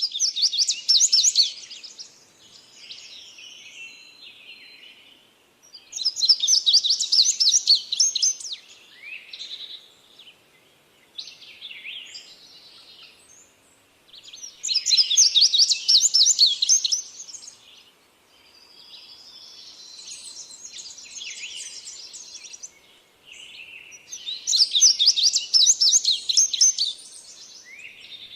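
Birdsong: a loud, fast run of high, quickly repeated notes comes four times, about every eight or nine seconds, with quieter chirps and calls in between.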